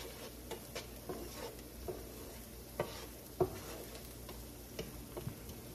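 Minced garlic and diced onions sizzling softly in melted garlic butter in a pot, the sauce base browning, with scattered sharp ticks through it.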